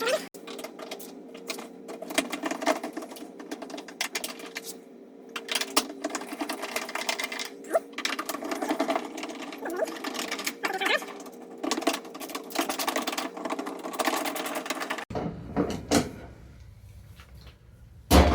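Screws being worked loose on a washing machine's front panel: busy clicking, tapping and handling of tools and metal over a steady hum. The hum stops abruptly about three seconds before the end, leaving a quieter rumble and a few knocks.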